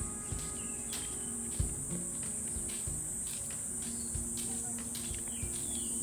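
Cicadas singing in a steady, high-pitched chorus, with regular soft thuds of footsteps.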